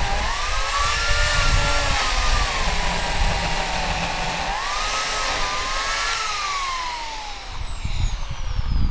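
Electric chainsaw with an 18-inch bar running and cutting into a silver maple trunk, its motor whine dipping under load and picking back up twice. About two-thirds of the way in the motor winds down with a steadily falling whine, and low heavy thuds come near the end.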